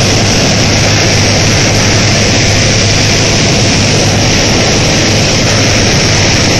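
Small propeller plane heard from inside the cabin in flight: a steady, loud engine drone with a low hum under a constant rush of engine and air noise.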